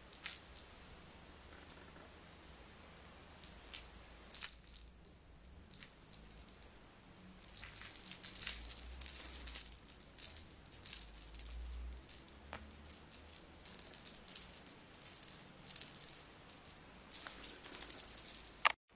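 A high-pitched rattling, shaken in irregular bursts, with a pause of a couple of seconds about a quarter of the way in; it cuts off abruptly near the end.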